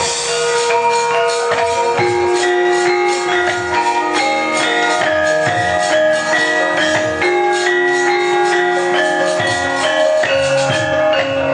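Javanese gamelan ensemble playing: many struck, ringing metal notes overlapping one another, with a steady run of percussion strokes.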